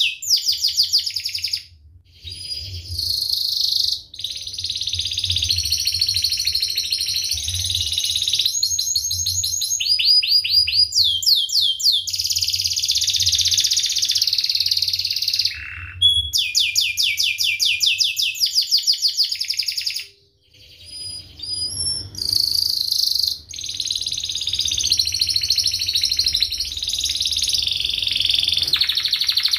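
Domestic canary singing loud, fast rolling trills and sharp chirps in long phrases broken by short pauses, with a steady low hum underneath.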